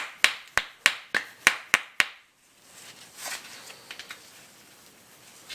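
About eight quick, sharp metal knocks in the first two seconds, then fainter scraping and a few light clicks: tapping on a rear drum-brake adjuster that may be half-seized.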